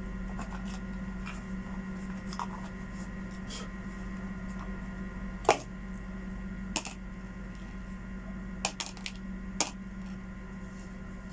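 A few sharp clicks and knocks of small hard parts and tools being handled during work on a Makita HR2470 rotary hammer, the loudest about halfway through and a quick cluster of three near the end, over a steady low hum.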